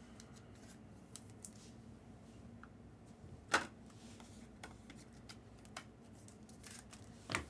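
Trading cards being handled and flipped through, small ticks with two sharper clicks about three and a half and seven seconds in, over a faint steady hum.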